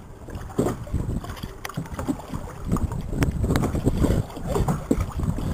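Water sloshing and splashing irregularly at the surface beside a boat's hull, with wind rumbling on the microphone.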